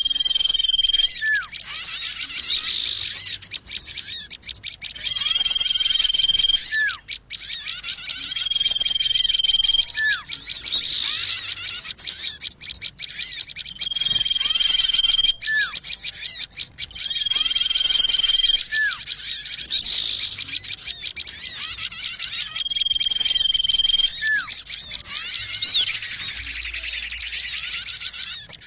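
Bird-lure recording of many small birds chirping and chattering densely, with a steady high whistle note about a second long that comes back every four to six seconds, and short falling calls in between; the pattern repeats like a loop.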